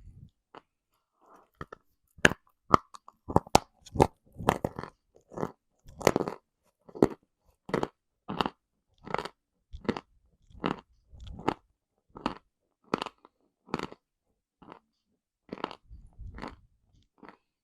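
Close-up crunching of dry edible chalk and clay being bitten and chewed: sharp crunches one after another, a quick flurry in the first few seconds, then a steady crunch about every three-quarters of a second.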